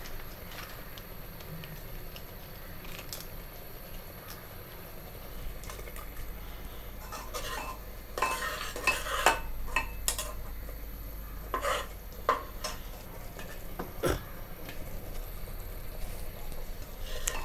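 Metal spoon stirring whole spices into masala paste frying in an aluminium pot, with a light sizzle. Quiet at first, then a run of scrapes and clinks against the pot from about halfway, and one sharp knock later on.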